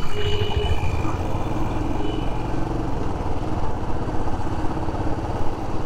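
Motorcycle engine running steadily as the bike rides along, heard from the rider's seat with wind noise on the microphone.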